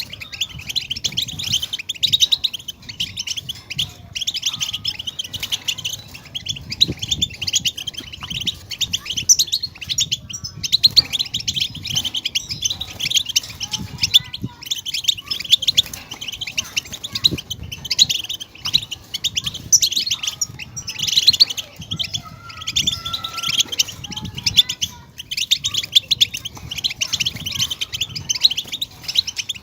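European goldfinch song: a fast, dense run of twittering and chirping notes that goes on with only a few brief breaks.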